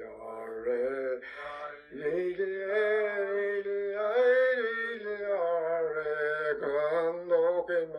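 Unaccompanied solo singing voice, a slow song of long, wavering held notes, with a short breath about two seconds in.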